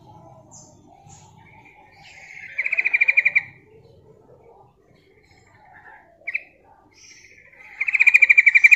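Female yellow-vented bulbul calling: two loud chattering trills of rapidly repeated notes, each about a second long, one about three seconds in and one near the end. A short sharp note and soft chatter come between them.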